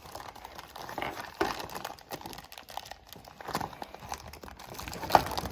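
Plastic packaging crinkling and rustling as toy pieces are handled, with irregular small clicks and one sharp knock about five seconds in.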